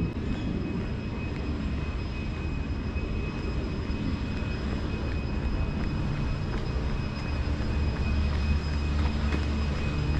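Steady low engine rumble with a faint, steady high whine above it; the rumble swells a little about eight seconds in.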